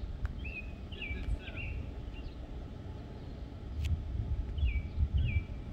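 Wind buffeting the microphone in a low, gusty rumble, with a small bird calling now and then: short calls that drop in pitch and then hold, a few near the start and a couple more near the end.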